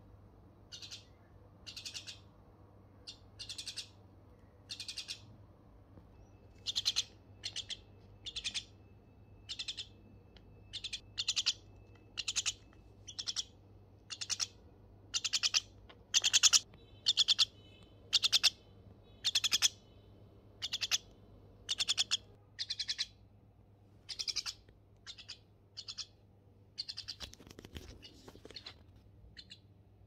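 Myna bird giving a long series of short, harsh, raspy chirps, roughly one or two a second, loudest around the middle of the run.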